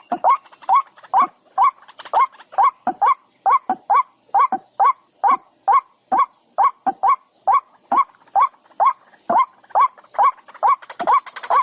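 A bird calling over and over in short, harsh honking notes, about two to three a second, in a very even rhythm. A rustling hiss joins near the end.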